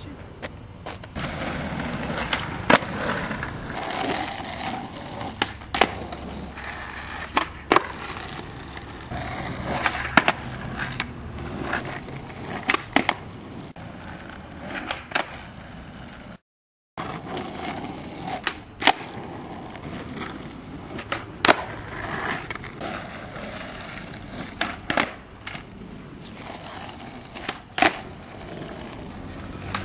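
Skateboard wheels rolling on rough asphalt, with repeated sharp clacks every second or two as the tail pops and the board slaps down on flatground tricks.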